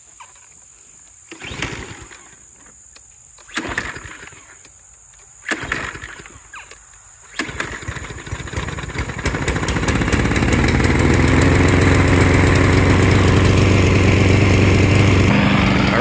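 Small gasoline engine of a red walk-behind lawn mower being pull-started: three short pulls that don't catch, then it catches on the fourth pull about seven seconds in and settles into a steady run. The mower had refused to start and is now starting after its nearly dry crankcase was topped up with oil.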